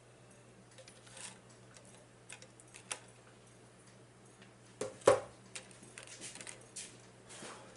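Eating noises close to the microphone: scattered small clicks and mouth sounds, with one louder crunchy burst about five seconds in, over a faint steady hum.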